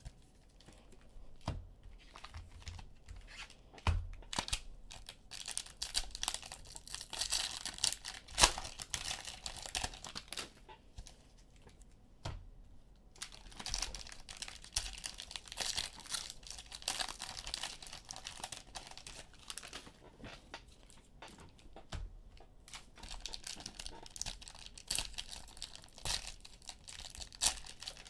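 Cellophane wrappers on trading-card packs being torn open and crinkled by hand: on-and-off rustling and tearing with scattered small clicks and knocks.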